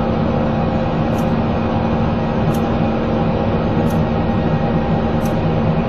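Twin Pratt & Whitney PT6A turboprops of an Embraer EMB-121 Xingu II heard from inside the cockpit while taxiing: a loud, steady drone with a constant hum.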